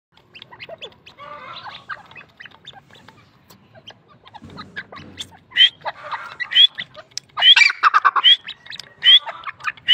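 Grey francolin calling loudly, a series of sharp rising notes repeated about once a second from about halfway through. Before that, light clicks of beaks pecking grain in a clay dish.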